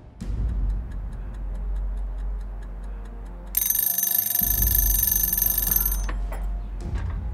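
Rapid, even ticking like a clock over a deep low rumble, then a shrill alarm ringing for about two and a half seconds, followed by a few sharp clicks.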